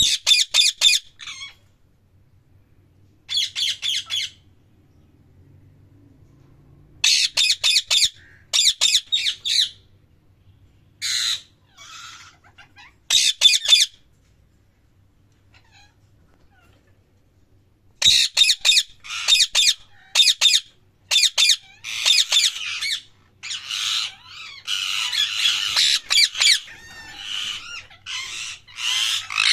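Parrot squawking in groups of rapid, shrill repeated calls, with quiet gaps of a few seconds between them. Near the end the calls run together into a longer stretch of harsh chatter.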